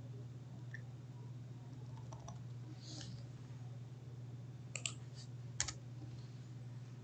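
A few sharp computer keyboard clicks, two close together about five seconds in and one more just after, over a steady low hum.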